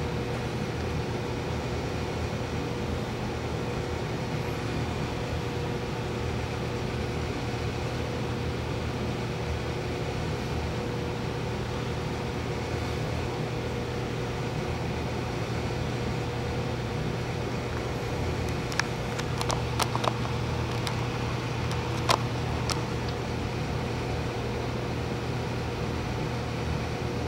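Steady machine hum with a constant low drone, and a few light clicks and knocks about two-thirds of the way through, the sharpest near the end.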